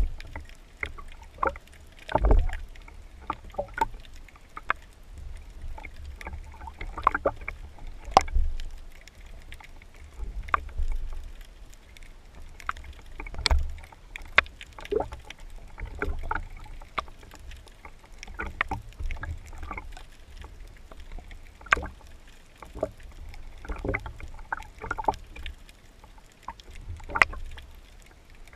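Underwater noise picked up by a camera on a wooden speargun barrel as the spearfisher swims: a low water rumble with irregular clicks and knocks, and a few louder thumps.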